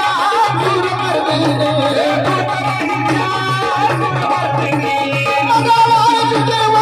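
Folk song performance: singing with wavering, ornamented melody over a hand drum keeping a steady beat.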